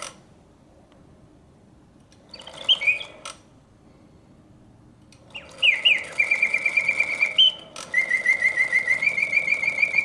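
Antique Bontems singing bird cage automaton whistling mechanical bird song from its bellows-driven piston whistle: warbling notes and rapid trills held around one pitch. It is silent at first, sings a short phrase about two and a half seconds in, stops again, then sings on from about five seconds in: the pause function starting and stopping the song.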